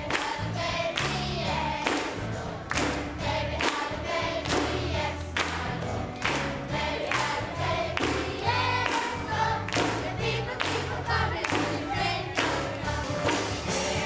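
Gospel choir singing a Christmas song, with a steady beat of hand clapping.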